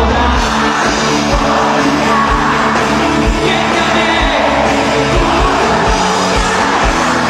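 Live rock band playing loud: electric guitars, a steady kick drum beat about twice a second, and a lead vocal.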